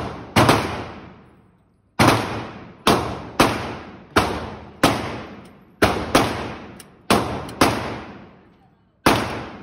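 A .40 S&W pistol being fired at a steady pace, about eleven sharp shots over nine seconds, some in quick pairs, each one ringing on in the echo of an indoor range.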